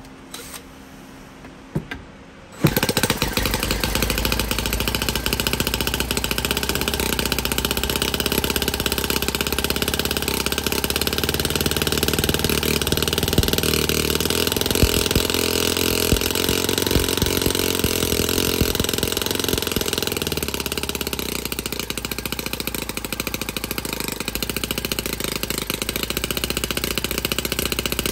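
A few small clicks, then a model stationary engine with hopper cooling and a tall exhaust starts suddenly about two and a half seconds in and runs steadily, belt-driving a small generator at slow speed.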